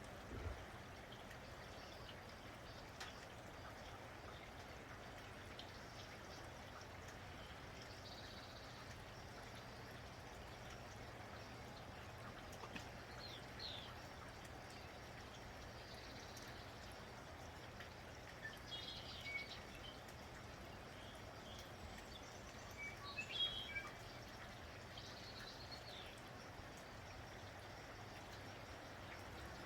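Faint steady hiss of light rain, with birds chirping in short scattered calls, most of them in the second half.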